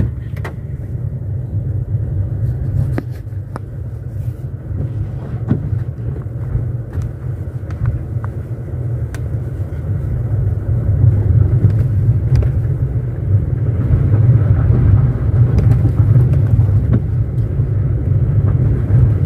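A car driving slowly on a wet gravel road, heard from inside the cabin: a steady low rumble of tyres and engine that grows louder about halfway through, with occasional light clicks.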